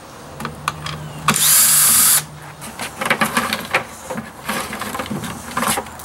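Cordless drill spinning out a screw in one burst of about a second, starting about a second in. Then a run of knocks and rattles as the plastic pump parts and cord are handled.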